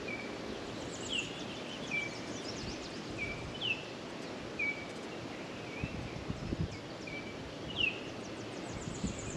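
Small birds chirping repeatedly, short high notes about once a second, some with a quick downward sweep, over a steady outdoor background hiss. A few faint low knocks come about six to seven seconds in.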